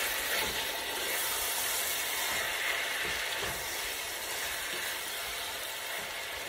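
Ground beef sizzling steadily as it browns in a pot, being turned over with a wooden spoon, with a few soft knocks of the spoon against the meat and pot.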